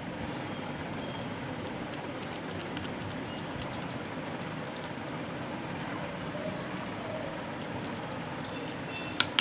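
A steel bowl is pressed and slid over soft coconut barfi mixture in a steel plate, giving faint soft scrapes and ticks over a steady background hiss. Near the end come two sharp metal clinks, the bowl knocking against the steel plate.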